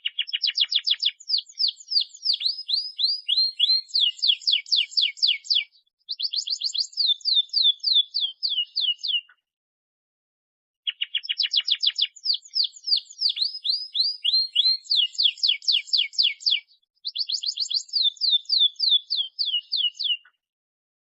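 Domestic canary singing: long rolling trills of fast repeated high sweeping notes, changing from phrase to phrase. A brief pause falls about a third of the way in, a longer one near the middle, and the song starts again.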